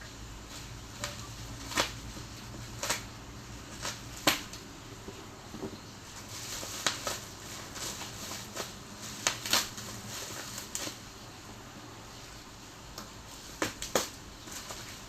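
Packaging being handled during an unboxing: irregular sharp clicks and taps with some rustling.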